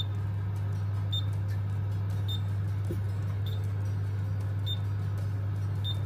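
Steady low hum of an oven's fan running with the door open, with a short high pip repeating about every 1.2 seconds.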